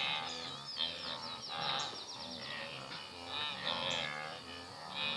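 A herd of wildebeest grunting and calling over one another in short, nasal, overlapping calls, with a steady high insect drone behind them.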